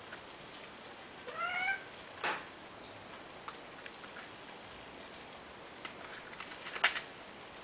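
A cat gives one short meow that rises in pitch about a second and a half in. A couple of sharp clicks follow, the loudest near the end.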